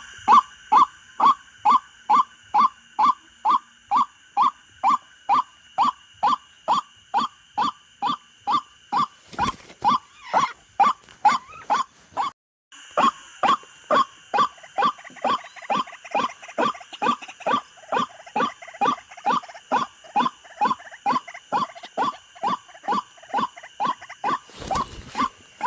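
White-breasted waterhen (ruak-ruak) calling: a short, harsh note falling in pitch, repeated very evenly a little over twice a second. The calling breaks off briefly about halfway through. A faint steady high whine runs underneath.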